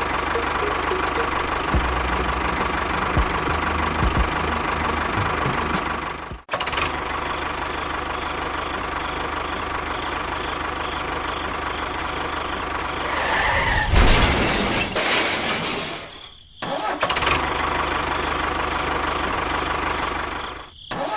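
A steady engine-like running sound that breaks off abruptly three times, as if cut, with a louder rush of noise a little after halfway.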